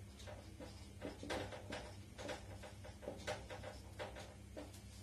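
Felt-tip marker writing on a whiteboard: a string of short squeaky strokes, about eight of them spread unevenly, over a faint steady low hum.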